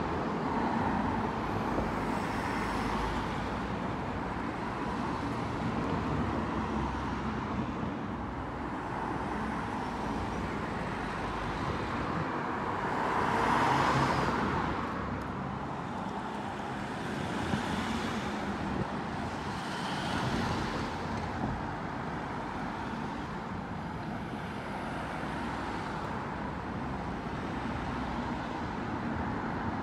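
Race-convoy team cars with bikes on their roof racks passing one after another, engine and tyre noise swelling and fading; the loudest pass comes about 14 seconds in, with smaller ones a few seconds later.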